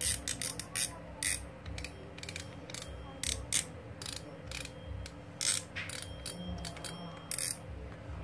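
Golden Fish New Weapon WP51X spinning reel's drag clicking as the spool is turned by hand. There is a quick run of clicks at the start, then scattered single clicks.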